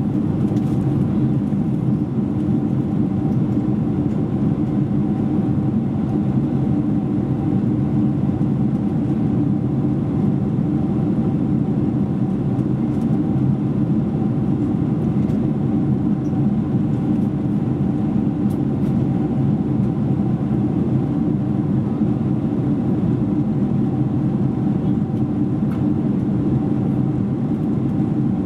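Steady cabin roar of a Boeing 747-400 jet airliner in flight, engine and airflow noise heard through the fuselage from a window seat over the wing, with a faint steady tone above the low rumble.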